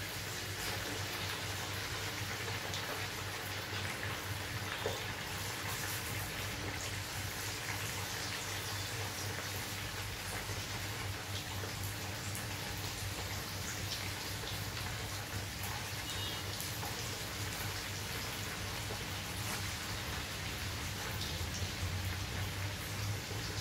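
Flour-coated chicken pieces deep-frying in hot oil in a kadai, a steady sizzle full of small crackles and pops.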